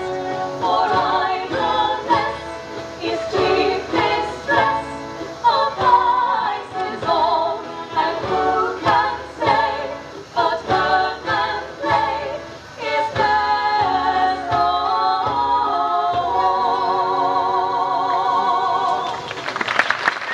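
Live Renaissance-style dance music with a steady beat, ending on a long held note with vibrato. Applause and cheering break out about a second before the end.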